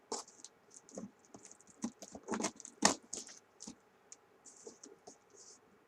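Irregular scratching, tapping and rustling as a taped cardboard shipping box is picked open by hand, with a few sharper clicks between about two and three seconds in.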